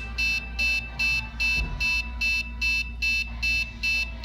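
Arduino alarm's buzzer sounding a rapid run of short, high-pitched beeps, about two and a half a second, evenly spaced.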